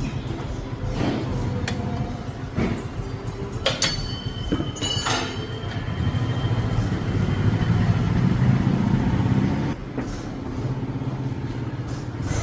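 Car running at low speed, with scattered clicks and knocks and a thin high squeal lasting about three seconds starting about four seconds in: brake noise from worn-out brake shoes.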